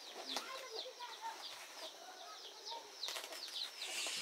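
Faint, rapid, short downward chirps of birds, several a second, with a few soft clicks about three seconds in.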